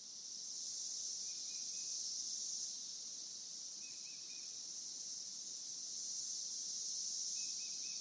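Chorus of many male Cassin's 17-year cicadas (Magicicada cassini) calling together as one steady high hiss. The chorus swells, fades a little around the middle and swells again, the roughly five-second sound cycle made by the males calling in step.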